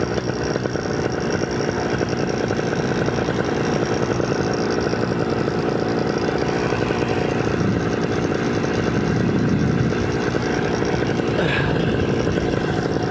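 Vittorazi Moster 185 single-cylinder two-stroke paramotor engine running steadily at cruise power in flight, its propeller pushing air past the pilot, with wind noise over it.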